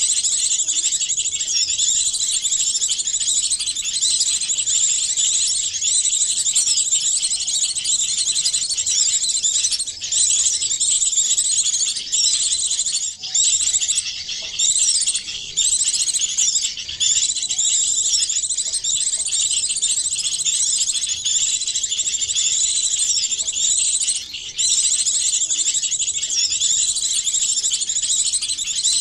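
Dense, unbroken chorus of small songbirds' high-pitched chirps and trills, many calls layered over one another into a single bird-luring track, with a few brief breaks.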